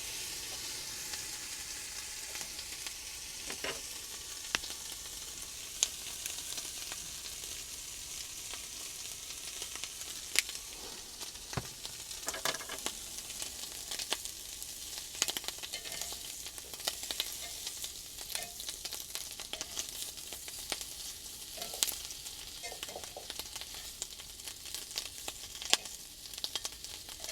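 Food sizzling in a hot pan: a steady frying hiss with frequent sharp spattering pops throughout, and a few brief squeals.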